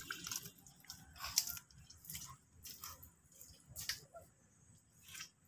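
Bare feet squelching in soft, wet mangrove mud: faint, irregular wet squishes about a second apart.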